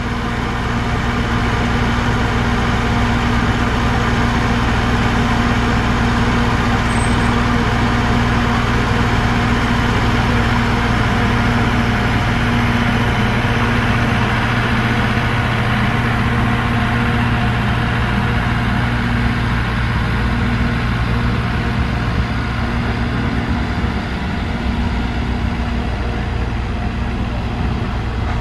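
Alishan Forest Railway diesel locomotive DL-50 running steadily at idle, a constant low engine drone with a slight shift in its low tones about three-quarters of the way through.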